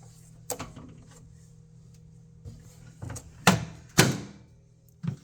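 Danby microwave's door being opened and shut: a few light clicks and knocks, then two loud clunks about half a second apart a little past the middle.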